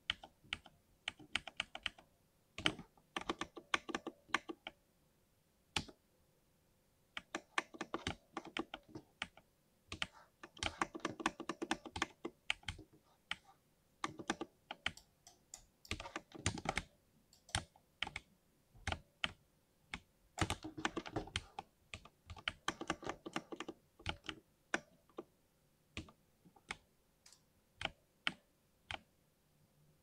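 Lubed switches of a 60% mechanical keyboard being typed on fast, in quick runs of keystrokes broken by short pauses.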